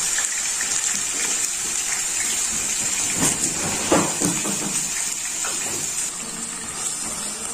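Diced beef steak sizzling in hot oil: a steady frying hiss, with a couple of light knocks about three and four seconds in.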